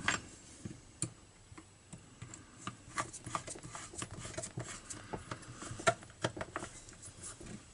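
Screwdriver tightening the plastic top-cover screws of a Partner P352 chainsaw: a run of small, irregular clicks and ticks, with a few louder clicks about three and six seconds in.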